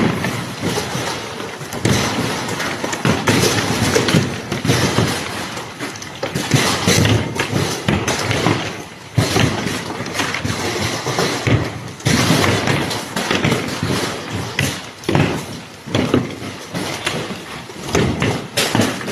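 Irregular knocks, thuds and clatter of construction work, closely spaced with brief lulls.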